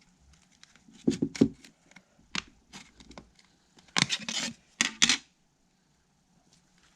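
AT&T Calypso smartphone cracking and creaking as it is bent by hand, its plastic back and screen glass giving way in several crackling bursts, the loudest about a second in and around four to five seconds in.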